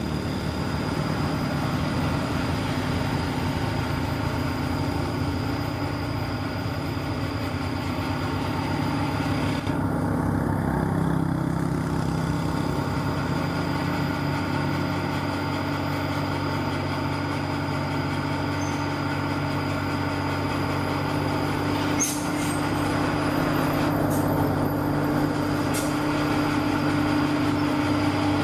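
Radio-controlled model excavator running with a steady mechanical hum, with a few sharp clicks about two-thirds of the way through.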